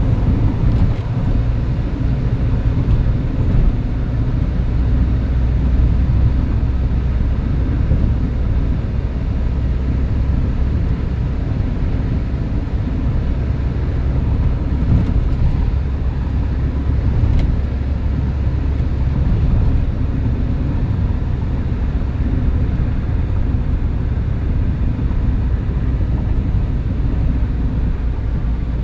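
A car cruising at a steady speed, with a constant low rumble of engine and road noise.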